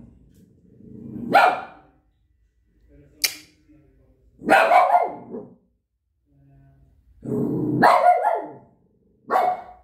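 Shih Tzu barking, five barks spaced one to two seconds apart, two of them drawn out to nearly a second and one short and sharp.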